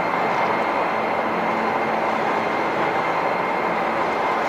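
Railway turntable turning with a steam locomotive on its deck: a steady mechanical rumble with a faint, steady high whine.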